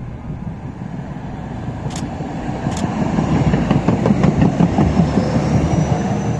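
A Stadler Citylink tram-train runs past at close range. Its wheels rumble and clatter on the rails, growing louder to a peak about four to five seconds in. Two sharp clicks come about two seconds in, and a thin high whine rises near the end as the cars go by.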